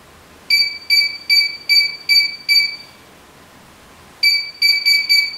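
Ghost-hunting 'pod' sensor beeping: a run of six quick high beeps about half a second in, a pause, then four more near the end. The beeping is the pod's alarm at something near it, which the investigator suspects may be his own nearness rather than something else setting it off.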